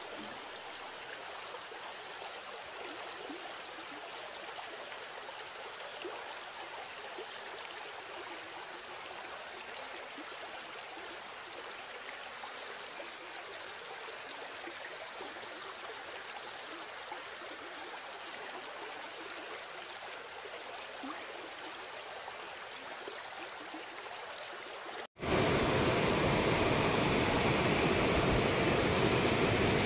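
Steady rush of a waterfall stream. About 25 seconds in it cuts out for a moment and comes back much louder and fuller.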